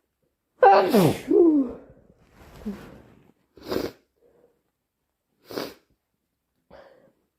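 A person sneezing once, a loud voiced sneeze with a falling pitch about half a second in, brought on deliberately as a hayfever-style sneeze. A few short sniffing breaths follow, spaced a second or two apart.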